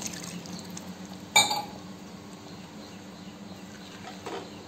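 A wooden spatula stirring thin tomato-cashew gravy in a kadai. About a second and a half in there is a single sharp clink of a utensil against the pan, with a short ring, and near the end a softer knock.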